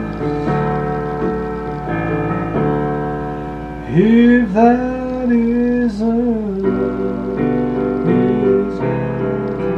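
Electronic keyboard playing slow, sustained chords, with a singing voice holding a long wavering note from about four seconds in.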